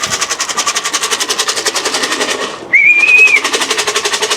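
A fast, steady rattle of clicks, about a dozen a second, with a short high tone held for under a second about two-thirds of the way through, louder than the clicking.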